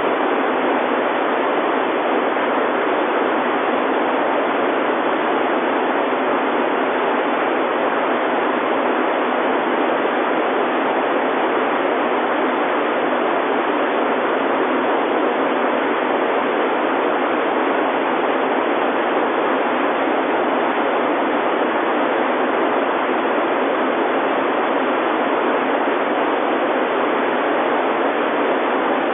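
Steady, loud hiss of radio static, thin and band-limited like a weather-radio channel, unchanging throughout.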